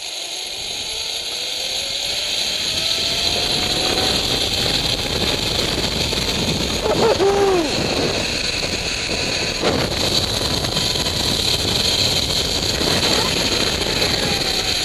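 Zip-line trolley pulley running along the steel cable over a steady rush of wind. Its whine rises in pitch as speed builds over the first few seconds, holds, then drops near the end as the trolley slows. A brief whoop about seven seconds in, and a sharp click near ten seconds.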